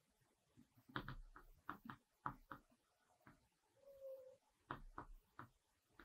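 Faint chalk strokes on a chalkboard: a run of short taps and scrapes about a second in and another near five seconds, with a short steady tone about four seconds in.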